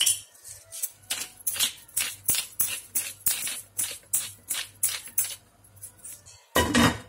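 Black pepper being dispensed over a pot of red wine: a steady run of dry, rattling crackles, about three a second, that stops about five seconds in. A short pitched sound follows near the end.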